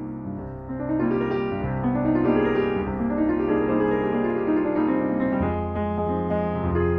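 Solo piano playing a slow, lyrical piece: flowing runs of notes rise and fall over held bass notes, and a deeper bass note comes in about five seconds in.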